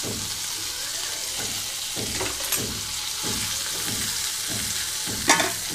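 Broad beans and ground spice powder frying in oil in a metal kadai on low flame: a steady sizzle, with a wooden spatula scraping through them in repeated strokes. A sharp knock sounds near the end.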